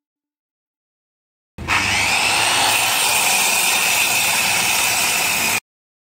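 Handheld circular saw cutting through an MDF sheet: a steady high whine over the noise of the cut. It comes in suddenly about a second and a half in and cuts off abruptly about four seconds later.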